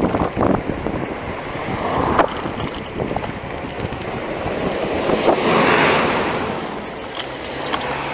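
Wind rushing over the microphone of a handlebar-mounted camera on a moving bicycle, with a few sharp rattles from the bumpy road in the first second. The rush swells loudest around five to six seconds in, then eases.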